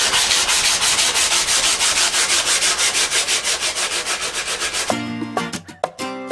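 A wooden beam being hand-sanded with a sanding block, in quick back-and-forth rubbing strokes. About five seconds in the rubbing stops and plucked guitar music begins.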